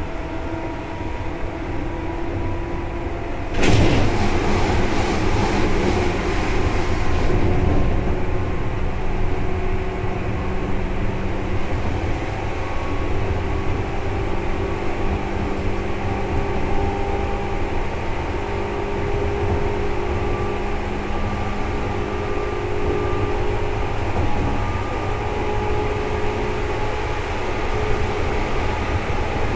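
Seibu 2000 series electric train running, heard from inside the car: steady low rumble with several steady motor and gear tones. About four seconds in there is a sharp clunk, followed by a few seconds of louder hiss.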